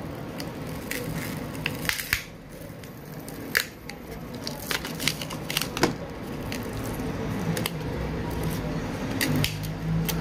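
Sharp clicks and crackles of plastic as the battery of an opened Huawei P30 Lite is handled and its adhesive pull-tab strip is peeled out from under it, over a steady low hum.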